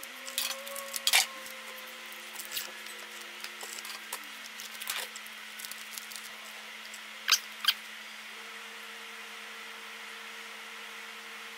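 Masking tape being pulled from the roll and pressed and crinkled over the rim of a metal paint can, with scattered small taps and two sharper clicks a little past halfway, over a faint steady hum.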